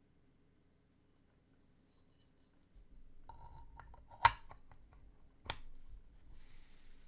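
Near silence, then mechanical keyboard parts being handled during assembly: light clicks and rattles, two sharp clicks a little over a second apart that are the loudest sounds, and a short rub near the end.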